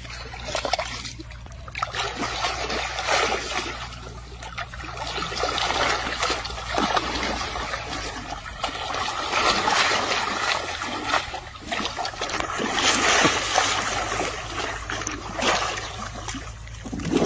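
Water splashing and trickling as a baby elephant plays in it, the splashing coming in uneven surges that swell and ease every second or two.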